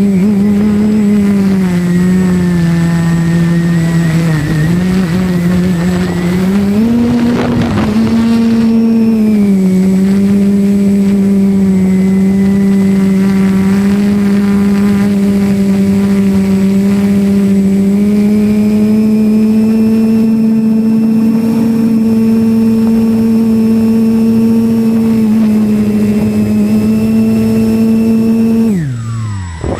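Drone's electric motors and propellers humming, the pitch wavering up and down with throttle and then holding steady. Near the end the hum drops sharply in pitch as the motors spin down.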